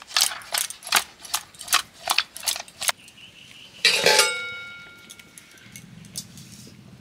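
Fish pieces being shaken and tossed with spices in a stainless steel bowl, the bowl clicking and clinking about four times a second. About four seconds in, a steel bowl is knocked or set down with a single ringing clang that fades away.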